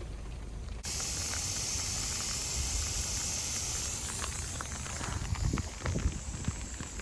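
Lawn water sprinkler spraying: a steady hiss that cuts in abruptly about a second in. Low thumps and knocks join it in the second half.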